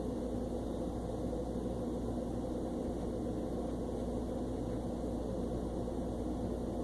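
Steady low hum with a faint hiss above it, unchanging throughout, with no separate sounds standing out.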